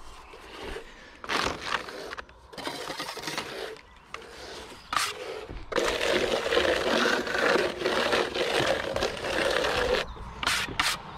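A hand tool scraping wet render across a wall in uneven strokes, with one longer continuous scrape from about six to ten seconds in.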